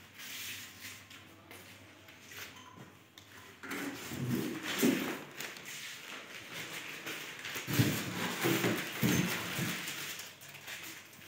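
TV packaging being handled: rustling of plastic wrap, cardboard and polystyrene foam, with several dull thuds. It is faint for the first few seconds and louder from a little over three seconds in.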